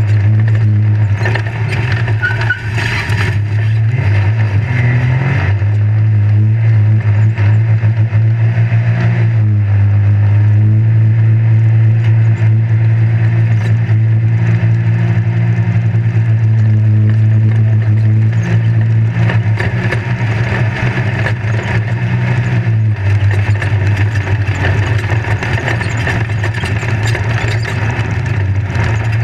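Off-road race vehicle's engine running at a steady pitch, heard from inside the caged cab, with the rattle and rumble of the chassis over a rough dirt track. The engine note dips and recovers about nine seconds in, and gives way to a noisier wash of wind and ground noise near the last third.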